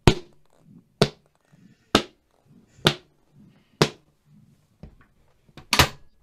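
Foley footsteps made with a shoe held in the hand and struck on a hard surface: five even steps about one a second. Near the end come a few lighter taps and a sharp double knock as a door is worked.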